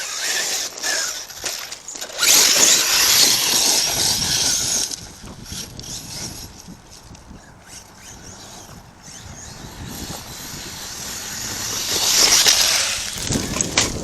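ARRMA Kraton 6S RC truck's electric motor whining and its tyres churning over dirt and gravel, with loud spells about two seconds in and again near the end, softer in between.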